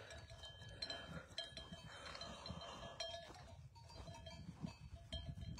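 Campanos, the large livestock bells worn by the grazing horses, clanking faintly and irregularly, with several ringing tones overlapping, over a low wind rumble.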